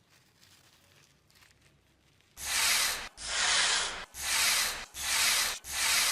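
Rusty metal being scrubbed by hand with an abrasive, in steady back-and-forth strokes that begin about two seconds in, roughly one stroke a second. This is rust and dirt being taken off an old hammer.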